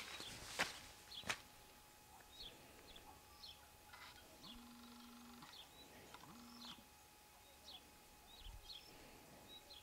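Faint outdoor ambience of small birds chirping, short high calls repeated at irregular intervals. It opens with a few footsteps on dry soil in the first second or so. Twice in the middle a low, steady, hum-like tone sounds, once for about a second and once more briefly.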